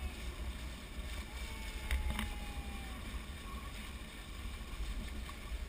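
Wind buffeting the microphone and water rushing past the hulls of a Hobie 16 catamaran under sail, a steady rumble with a wash of hiss. Two sharp knocks come close together about two seconds in.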